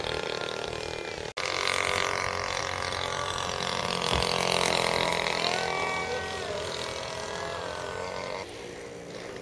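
Model aeroplane engine running in flight, its pitch sliding up and down as the plane passes and changes throttle. A brief break about a second in, and the sound gets fainter near the end.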